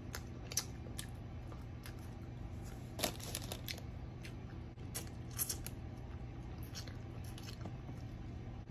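Crisp broasted chicken being eaten: scattered short, sharp crunches and crackles, bunched in two quick clusters, over a low steady hum.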